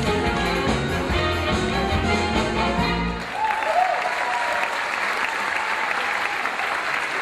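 Upbeat backing music with a strong bass line, which cuts off about three seconds in; an audience's applause then fills the rest.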